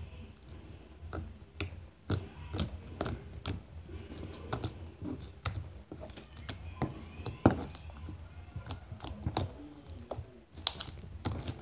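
Sticky slime being kneaded, pinched and pulled apart by hand on a tabletop, giving irregular sticky clicks and squelches. The slime is still very sticky.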